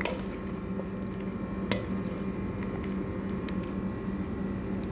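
Raw chicken thighs coated in olive oil and spices squelching as they are mixed by hand in a stainless steel bowl, with a couple of sharp clicks against the bowl, over a steady low hum.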